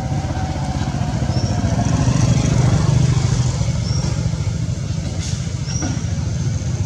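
Engine of a motor vehicle running nearby, a steady low rumble that grows louder about two to three seconds in and then eases off, as of a vehicle passing. A few short high chirps sound over it.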